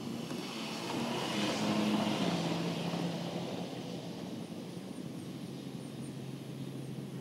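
A motor vehicle passing by. It swells and fades over about three seconds, and its engine note drops in pitch as it goes past.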